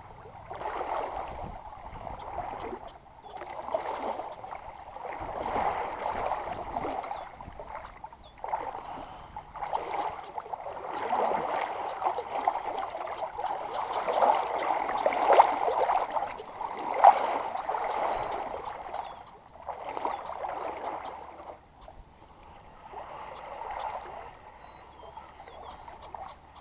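Paddle strokes pulling through water as a small boat is paddled along, a swishing wash rising and falling every two to three seconds. One brief, louder knock comes about two-thirds of the way through.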